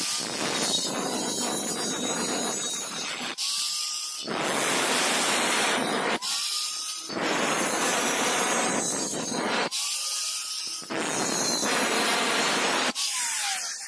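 Angle grinder with a cut-off disc cutting stainless steel square tube, a loud steady grinding noise in about four long passes. Between passes the motor's pitch rises as it spins up, and near the end it falls as the grinder winds down.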